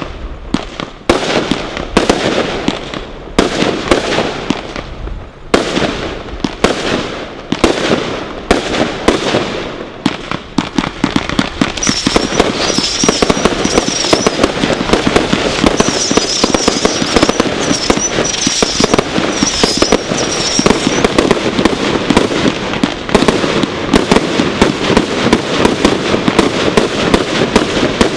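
Brothers 'The God Father' firework barrage firing: sharp shots and bursts about two a second, then from about eleven seconds in a dense, continuous crackling volley with high wavering tones over it. The volley stops abruptly at the end.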